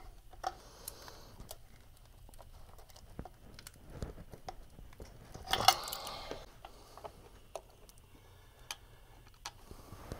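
Light clicks and rustling of a plastic wiring-harness clip and its corrugated loom being worked by hand to pop it loose, with one louder scraping rustle about six seconds in.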